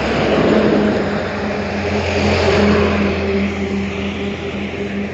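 A heavy goods truck passing close by: its diesel engine drones steadily under loud tyre and wind rush. The noise swells twice and eases off toward the end.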